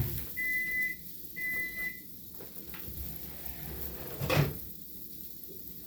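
An electronic beeper sounds two short, even high beeps about a second apart, then stops. A little over four seconds in comes a single knock.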